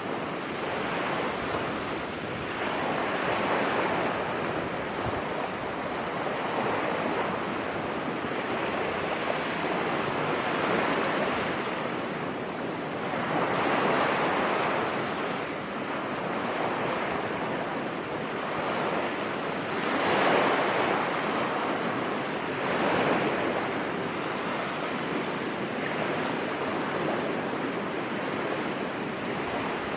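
Sea surf breaking on a beach: a steady wash of waves that swells louder every few seconds as each wave breaks and runs up the shore.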